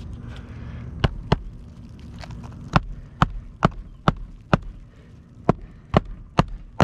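Hammer driving a roofing nail through an asphalt shingle: a run of sharp, evenly spaced blows, about two a second, starting about a second in, with a short pause midway.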